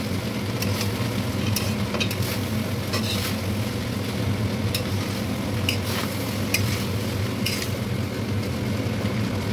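Metal spatula scraping and knocking against a steel kadai as fried rice is stir-fried in oil, with irregular sharp clicks over a light frying sizzle and a steady low hum.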